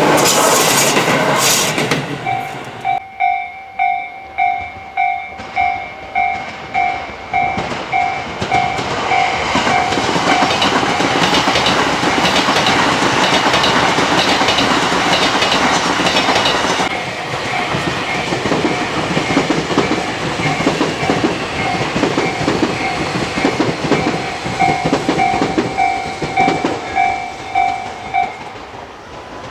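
Railway level-crossing bell dinging steadily about twice a second as Tobu electric trains pass. One train is going by at the start, and the bell starts about two seconds in. Another train then runs through with its wheels clacking over rail joints, and the bell stops shortly before the end.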